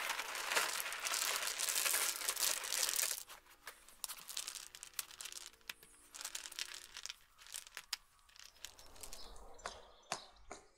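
Rounded cobble pebbles tipped out of a flexible plastic tub onto a pond liner: a dense clattering rattle of stone on stone for about three seconds, then scattered clicks and knocks as the stones are placed one by one by hand.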